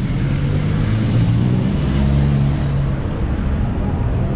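Road traffic passing close by: the engine hum of cars going past over a steady rumble of tyres and street noise, swelling a second or so in.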